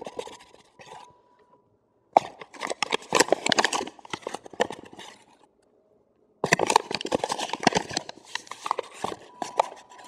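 Measuring cup scooping flour out of a paper flour bag and knocking and scraping in a mixing bowl: two runs of rustling, scraping and tapping, each about three seconds long, with a short pause between.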